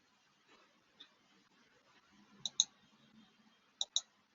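Computer mouse clicking: one faint click about a second in, then two quick pairs of clicks, one near the middle and one near the end.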